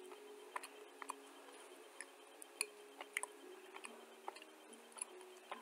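Dry clay crunching: a dozen or so sharp, irregular crackles and ticks over a faint steady hum.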